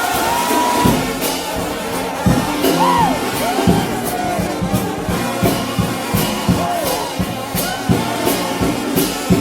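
Trombone-led shout band playing an upbeat praise break over drums. The lead horn slides and bends its notes, and the drum beat settles into a steady rhythm about halfway through.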